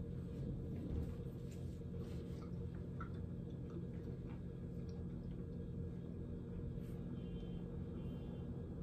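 Faint chewing and small clicks of soft chewy red velvet cookies being eaten, over a steady low hum.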